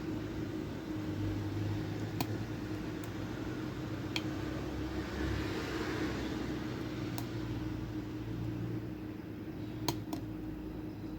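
Steady low background hum with a handful of sharp, small metallic clicks, twice close together near the end: a lock pick and tension wrench working the pins of a pin tumbler lock.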